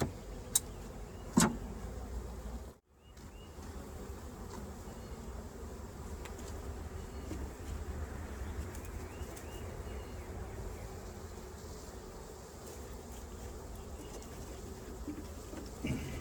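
Honeybees buzzing around an open hive as a steady hum, with two light knocks in the first couple of seconds.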